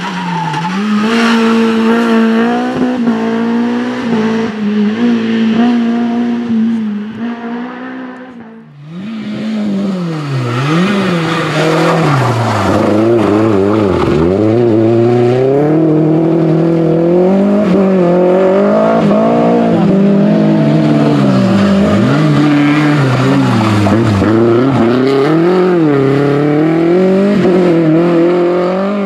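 Renault Clio Williams Group A rally cars' 2.0-litre 16-valve four-cylinder engines revving loudly through corners, the pitch climbing and dropping again and again with throttle lifts and gear changes. About nine seconds in, the sound dips and breaks off as one car gives way to the next.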